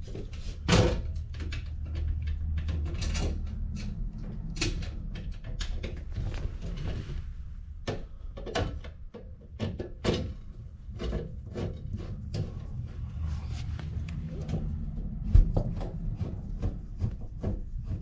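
Repeated clicks, knocks and light scrapes of a sheet-metal breaker panel cover being handled and fastened back on, over a low steady hum.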